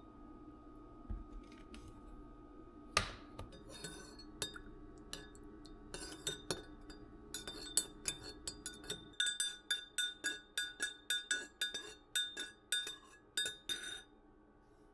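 Glassware clinking: scattered taps at first, then a quick run of ringing clinks, about three a second, over the last several seconds. A low hum underneath stops about nine seconds in.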